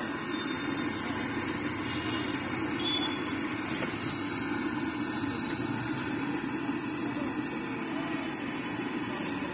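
Steady street noise: a continuous hiss with traffic running behind it, holding an even level without any distinct knocks or breaks.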